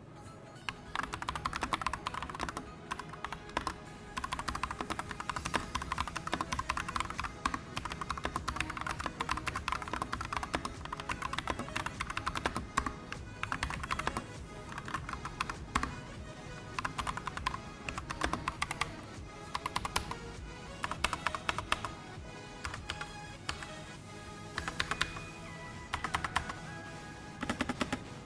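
Continuous typing on an Akko RF Series mechanical keyboard with Akko Cream switches and PBT double-shot keycaps, a steady run of quick key clicks.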